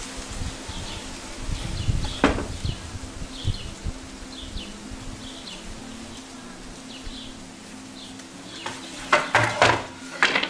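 Outdoor background with a short high chirp repeating about every half second over a low steady hum. There is a single knock about two seconds in and a cluster of loud knocks near the end.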